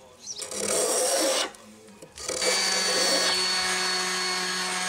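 One scraping stroke of a spokeshave shaving an ash axe handle. About two seconds in, an AEG cordless random orbital sander starts running steadily on the wood, with a low hum and a thin high whine.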